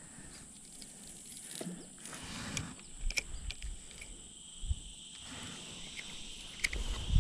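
Steady high-pitched insect drone, with a second, lower insect band joining about halfway through, over scattered light clicks and handling knocks.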